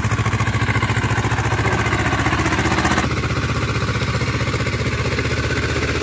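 Diesel farm tractor engine running steadily under load with an even, rapid chugging beat. Its tone shifts slightly about halfway through.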